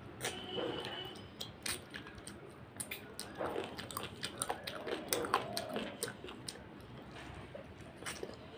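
Close-up eating sounds: a person chewing a mouthful of rice and chicken curry, with many short wet mouth clicks and smacks.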